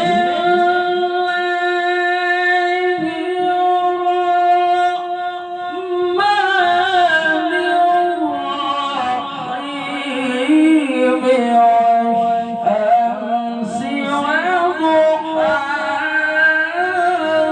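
A male qari's voice in melodic Quran recitation (tilawah). It holds one long, steady note for about six seconds, then moves into winding, ornamented runs of pitch.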